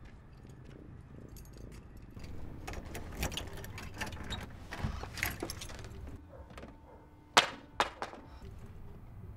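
Two sharp knocks on a door, about half a second apart, near the end, after a stretch of scattered light clinks and clatter.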